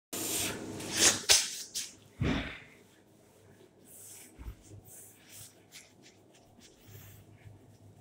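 Rustling with two sharp knocks in the first second and a half, then a dull low thud about two seconds in, followed by faint scattered clicks and shuffling.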